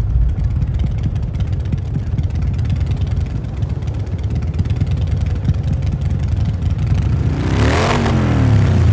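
Motorcycle V-twin running through a MagnaFlow exhaust: a steady, deep rumble, with a brief rev that swells and shifts in pitch near the end.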